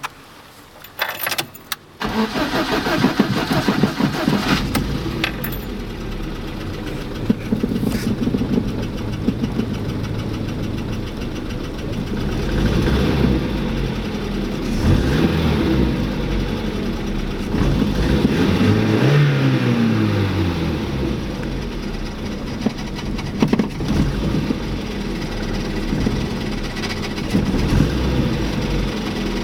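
Car engine started about two seconds in after a few short clicks, then running, with the revs rising and falling several times in the middle. An unexplained strange noise in this engine is the reason for recording it.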